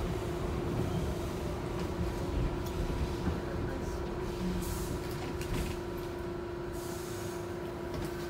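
Subway car in motion heard from inside the car: a steady rumble of the train running on the track with a constant hum over it.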